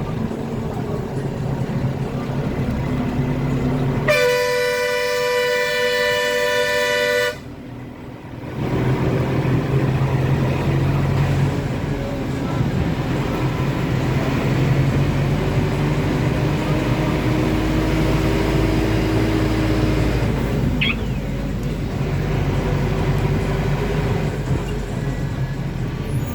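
A road vehicle's engine running steadily, with a horn sounding for about three seconds around four seconds in. The sound cuts out briefly right after, then the engine carries on, its pitch rising and falling later on.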